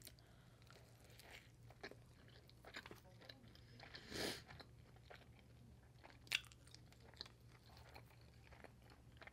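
Faint close-miked eating sounds: soft chewing with scattered small mouth clicks, and one brief crunchy bite about four seconds in.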